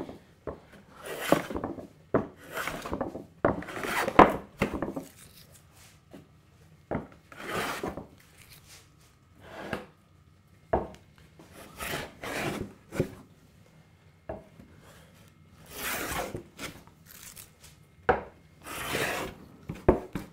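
Hand jack plane set for a very heavy cut, shearing thick shavings off a board in repeated rasping strokes, roughly one a second with a few short pauses.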